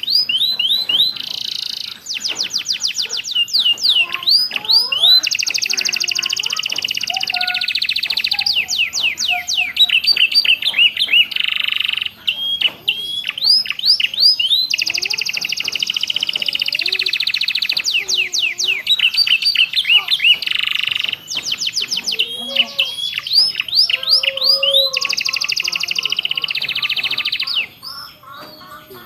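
Domestic canary singing a fast, continuous song of buzzing trills and quick strings of rising chirps, its repertoire filled with phrases copied from the ciblek (bar-winged prinia) and prenjak. The song stops shortly before the end.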